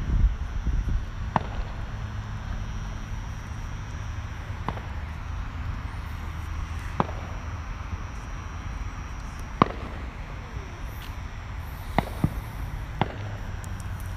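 Distant firework pops: about seven sharp, isolated cracks spread across the stretch, over a steady low rumble of wind and handling on a handheld microphone, with one heavier thump right at the start.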